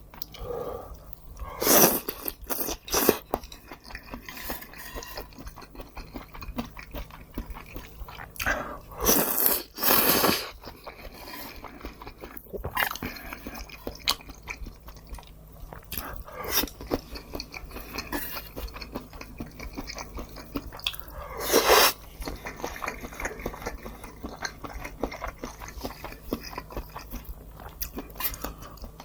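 Close-miked eating: steady chewing with crisp crunching bites of fried food, and a few louder bursts about 2, 9 and 22 seconds in.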